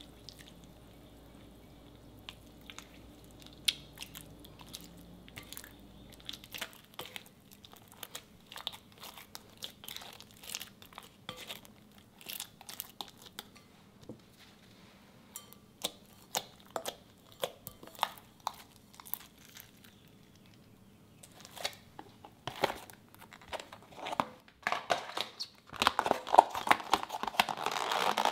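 Clear slime being stirred and worked in a glass bowl: a run of small sticky pops and clicks that come more often as it goes on, then a louder, denser crinkling over the last couple of seconds.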